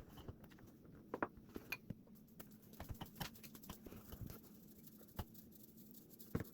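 Faint, uneven light taps and clicks of sugar and baking powder being sifted into a mixing bowl.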